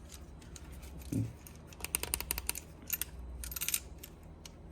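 Scattered small clicks and a short rustle from a car key fob being handled, with a brief thump about a second in.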